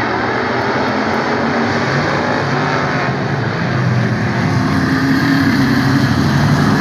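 Engines of a pack of hobby stock race cars running on an oval track, a continuous mass of engine noise that gets louder from about four seconds in as the field comes through the turn.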